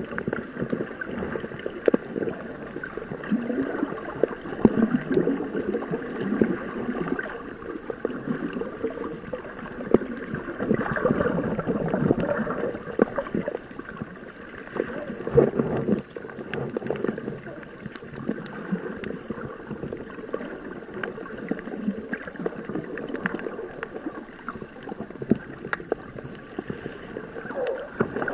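Muffled water sloshing and gurgling, heard through an underwater camera housing. It swells and fades unevenly, with scattered small clicks.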